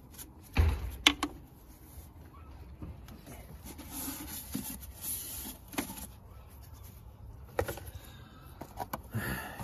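Hands handling the plastic air filter housing and old paper air filter of a Nissan Qashqai: scattered plastic knocks and clicks, the loudest a thump about half a second in, with light rubbing and rustling as the housing is wiped clean.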